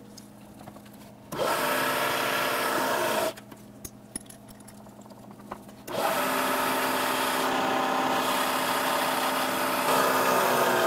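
Twist drill in a vertical milling machine cutting into a metal index plate in two pecks: a first cut of about two seconds, a pause, then a longer cut of about six seconds, a scraping, ringing drilling noise.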